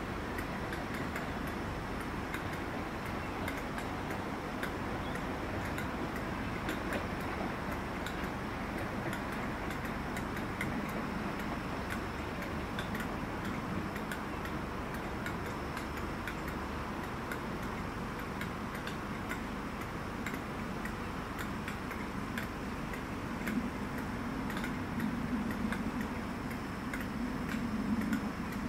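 Railway platform ambience: a steady background hiss with frequent light ticks, and a low hum that grows louder in the last few seconds.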